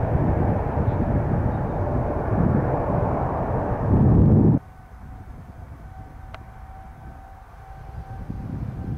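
Boeing 787-9 jet engines rumbling loudly and steadily as the airliner climbs away after takeoff; the sound cuts off abruptly a little past halfway. A second Boeing 787-9 on the runway follows, its engines making a quieter, steady whine that grows louder near the end.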